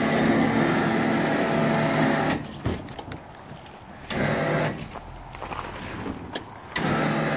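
An electric motor humming at a steady pitch, running in stretches that stop and start abruptly: the drive that lowers the motorcycle ramp.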